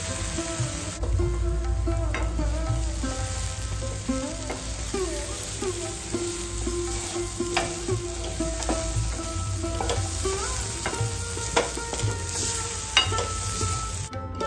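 Wooden spatula stirring cooked chickpeas and spices in a stainless steel pan, with scattered clicks and knocks against the metal over a sizzle.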